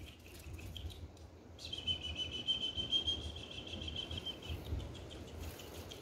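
A bird giving one steady, high trilled call for about three seconds, starting a little under two seconds in.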